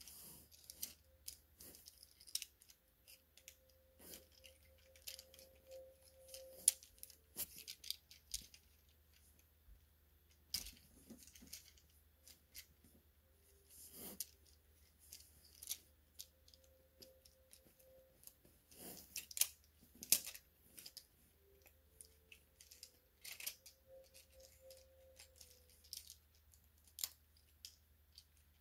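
Scattered faint clicks and light rattling of hard plastic Transformers figure parts being handled, with a faint tone that comes and goes a few times.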